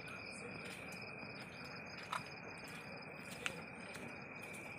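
Crickets and other night insects chirping: a steady high trill with a pulsing chirp above it. Two short sharp clicks stand out, about two seconds and three and a half seconds in.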